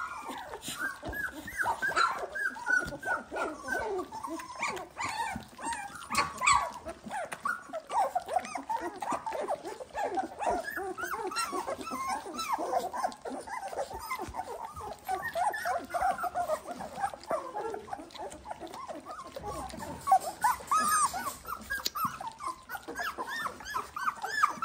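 A litter of 18-day-old Dalmatian puppies whining and squeaking nonstop, many short high cries overlapping one another. The puppies are still loud and unsettled in a new pen they have just been moved into.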